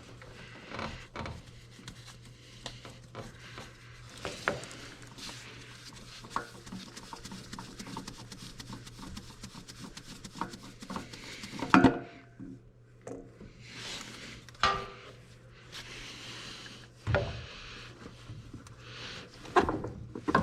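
An oil filter being unscrewed and handled off the Deere 317 skid steer's engine: scattered small metallic clicks, scrapes and rubbing, with one louder clunk about midway. A steady low hum runs underneath and stops near the end.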